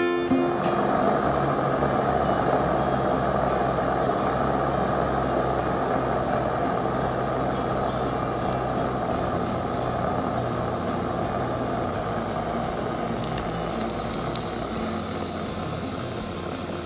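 Aster BR 96 live-steam model locomotive standing with a steady rushing hiss that fades slightly. A few sharp clicks come about thirteen seconds in, after which a thin high steady tone joins the hiss.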